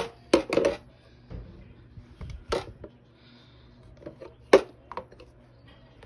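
Sharp metallic clicks and knocks from the polished metal parts of an upright vacuum cleaner being handled, about six of them, the loudest near the start and about three-quarters of the way through.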